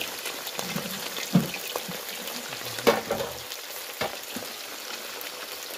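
Pieces of food deep-frying in hot oil in a large aluminium karahi, a steady bubbling sizzle. A few sharp knocks cut through it, the loudest about a quarter of the way in and about halfway.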